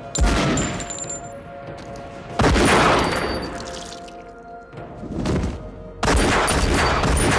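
Handgun gunshots in a shootout: a loud blast at the start, another a couple of seconds in, and a rapid volley of shots near the end, each ringing out with an echo. Held notes of a film score sound underneath.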